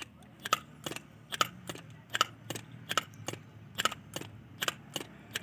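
Sharp metallic clicks, about three a second, as a rod is pushed in and out of a rebuilt TVS brake master cylinder, working its new piston kit.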